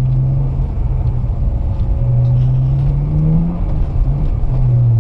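2008 BMW 335i's twin-turbo N54 inline-six, fitted with catless downpipes, running under driving load, its note easing off about half a second in, climbing from about two seconds in, dropping away, then coming back near the end as the throttle is worked.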